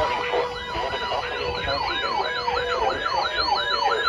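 Electronic siren warbling rapidly up and down, about four sweeps a second, over a steady tone.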